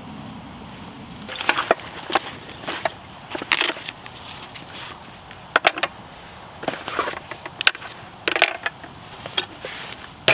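Irregular clinks, knocks and rustles of camp cooking gear being handled: utensils pulled from a canvas roll and items set down on a board. Faint steady background noise for the first second before the clatter starts.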